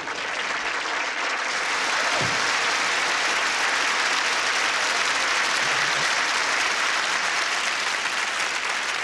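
Sitcom studio audience applauding steadily.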